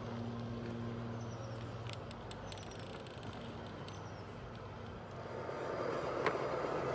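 G scale model double-stack train's well cars rolling along outdoor track, with a low hum and a few sharp clicks from the wheels on the rails. About five seconds in, the rumble of another model train running on the track grows louder.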